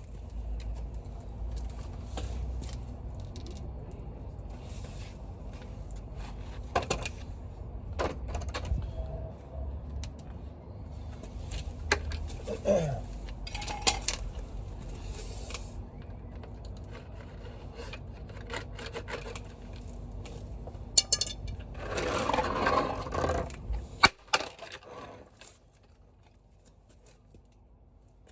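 Irregular clicks, knocks and scrapes of tools and plastic guttering being handled, over a steady low rumble. A louder stretch of scraping comes about 22 seconds in, and the sound drops away suddenly a couple of seconds later.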